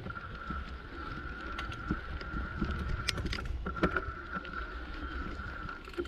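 Mountain bike ridden slowly over a muddy, rutted dirt track, heard from a camera mounted on the bike: a steady low rumble of tyres and wind with scattered knocks and rattles from the bike over bumps, and a thin steady high tone running underneath.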